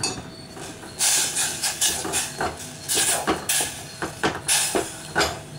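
Metal spoon stirring and scraping lumps of jaggery in water around a stainless steel pot, an irregular run of scrapes and clinks starting about a second in, as the jaggery is worked to dissolve it.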